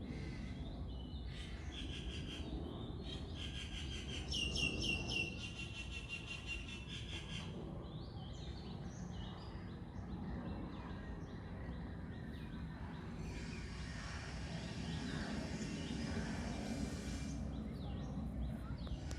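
Birds chirping and calling in rapid repeated notes, busiest about four to seven seconds in, over a steady low outdoor rumble. A few seconds of hiss rise and fade in the second half.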